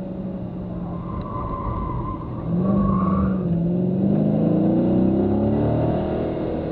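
A car's engine heard from inside the cabin on an autocross run. It runs at low revs through a slow turn, then from about two and a half seconds in it gets louder and climbs steadily in pitch as the car accelerates hard.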